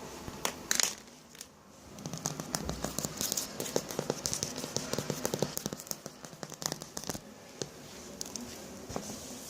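Close-miked ASMR sounds: dense, irregular crackling and clicking, busiest in the middle and thinning out towards the end.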